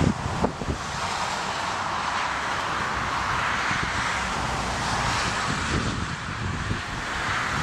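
Aircraft engines heard as a steady rushing noise that swells and eases slightly, with gusty wind buffeting the microphone.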